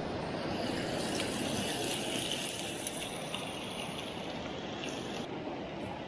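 Steady rushing of a river, with a fainter, higher hiss over it that cuts off about five seconds in.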